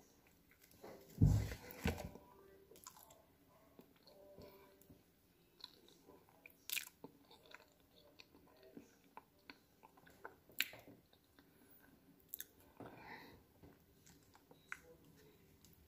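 A person chewing and biting into a soft peeled banana, eating it straight off a plate without hands, with wet mouth noises and scattered sharp clicks. A dull thump about a second in is the loudest sound.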